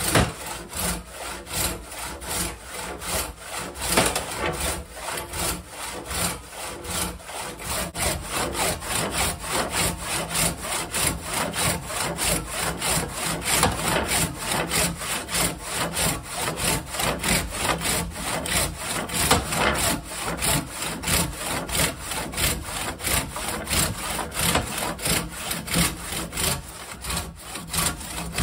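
Large one-man crosscut saw with big teeth cutting through a bark-covered log by hand, in steady back-and-forth strokes of about three a second. The saw is dull and needs sharpening.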